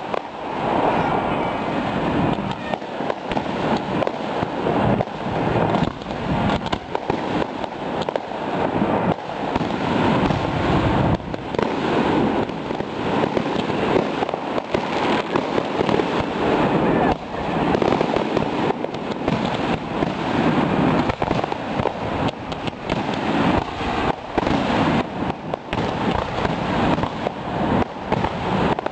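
Aerial fireworks bursting in a near-continuous, rapid barrage of bangs.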